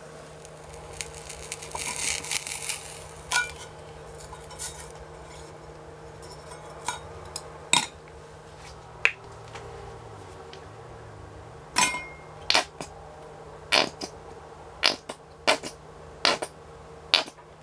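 Sausage pieces being handled in a stainless steel camp cup on a canister stove: a brief hiss about two seconds in, then scattered sharp clinks and taps of metal on the cup over a steady low hum. Near the end a squeeze bottle of mustard sputters as it is squeezed onto the bun.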